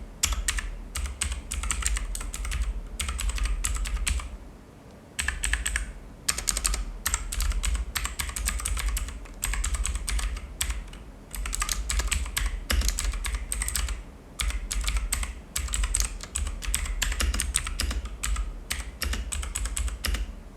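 Typing on a mechanical keyboard with blue switches: bursts of fast, sharp clicking keystrokes, broken by short pauses.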